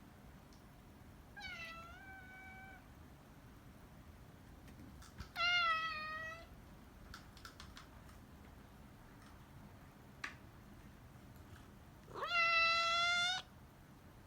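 A house cat meowing three times, a few seconds apart; the last meow is the longest and loudest, sliding up at the start and then held. A few light clicks fall between the calls.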